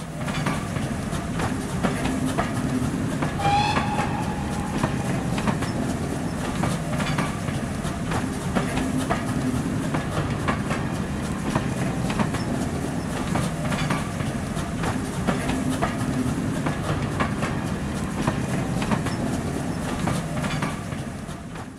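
A train running past, its wheels clicking steadily over the rail joints, with a short whistle about three and a half seconds in.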